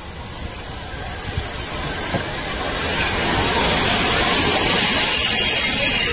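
DR class 52 2-10-0 steam locomotive passing close by, growing steadily louder until a strong steam hiss dominates as the engine goes past, over the low rumble of its wheels on the rails.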